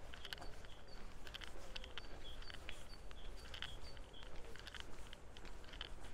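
Small birds chirping, short high notes and sharp chips coming irregularly, over a low wind rumble on the microphone.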